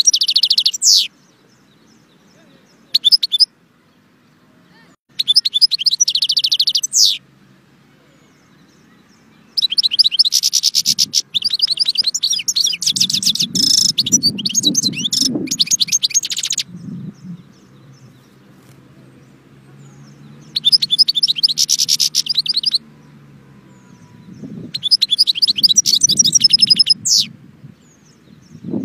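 Caged European goldfinch singing in six bursts of fast, high twittering. The longest phrase lasts about seven seconds in the middle, and short pauses separate the others.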